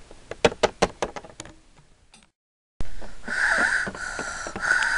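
A quick run of about eight light clicks as small plastic toy figures are tapped and set down on a tabletop. After a cut, a steady hiss.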